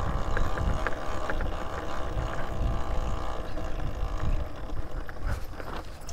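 Talaria Sting R MX4 electric dirt bike riding a dirt trail: a faint steady motor whine over wind rumble on the microphone, the whine fading about halfway through, with a few light clicks.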